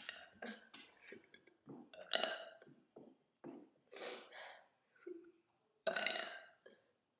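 A woman burping deliberately: a string of burps of varying length, the loudest about two, four and six seconds in, with smaller ones between.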